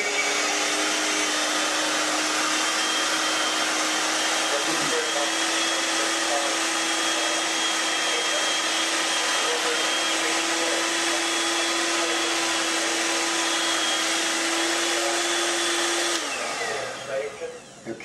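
Handheld electric mixer running steadily, its beaters whisking cake batter, with a constant motor whine. Near the end the motor winds down and stops.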